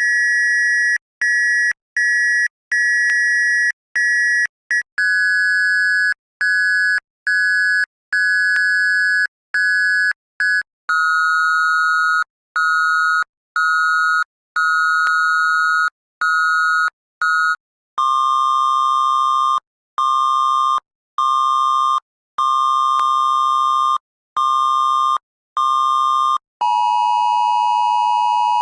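Cell-phone Amber Alert attention tone, the two-tone chord of a Wireless Emergency Alert, beeping in its long-and-short pattern at several playback speeds. It starts high and fast and steps down in pitch and tempo four times, reaching about normal speed near the end.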